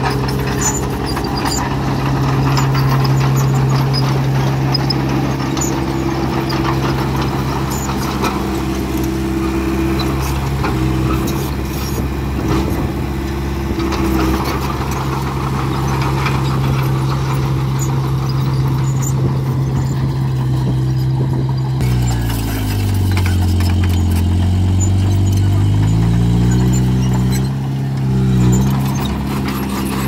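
Diesel engine of a small crawler bulldozer running steadily under work, with clanking of its steel tracks. About two-thirds of the way through the engine note drops lower, then climbs back up over a few seconds.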